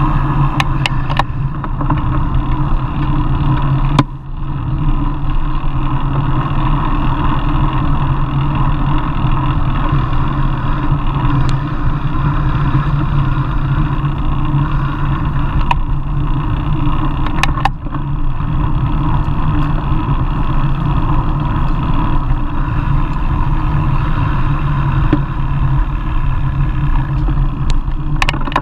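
Steady rumble of wind and road noise on a bicycle's handlebar-mounted camera while riding, with a few sharp clicks or knocks from the bike, several near the start, one about four seconds in, one about seventeen seconds in and one near the end.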